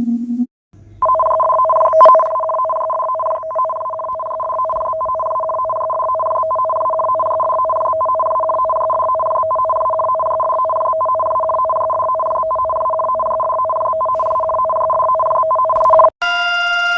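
Emergency alert attention signal: two steady tones sounding together for about fifteen seconds, broken by frequent clicks and dropouts over a low hum. It starts about a second in and cuts off near the end, where a different, higher set of electronic tones takes over.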